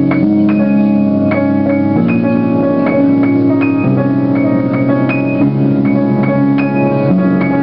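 Piano keyboard playing a made-up tune, with a new chord struck about every second over held low notes.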